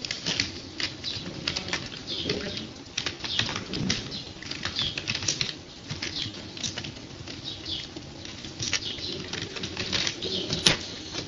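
Computer keyboard typing: irregular runs of quick key clicks over a steady low hum.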